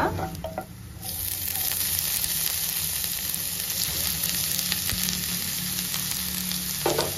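Hot ghee in a kadai sizzling as grated carrots go in on top of fried cashews and raisins: a steady frying hiss that starts suddenly about a second in, with light scrapes of the spatula.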